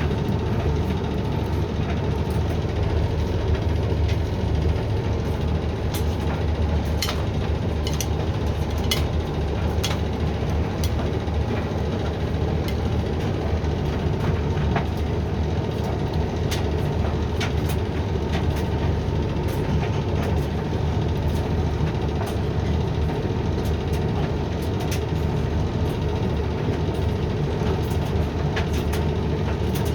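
Hoover tumble dryer running on a jeans drying programme: a steady low motor and drum hum, with irregular light clicks and taps as the load tumbles.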